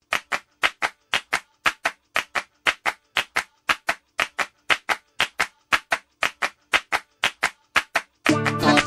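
A steady rhythm of sharp hand claps, about four a second in pairs, over a faint sustained tone, as the intro of a music track; the full band music with pitched instruments comes in near the end.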